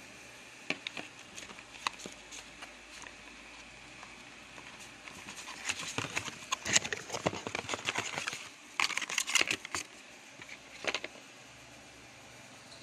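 Cardboard packaging and a plastic charger being handled: scattered light taps and clicks, then a stretch of cardboard rustling and scraping from about five to ten seconds in.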